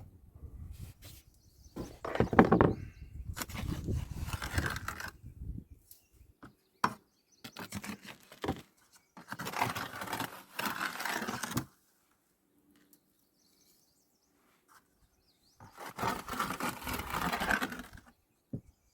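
Crushed ore being shaken through a classifying screen, the gravel rattling and scraping in four separate bursts of a second or two each.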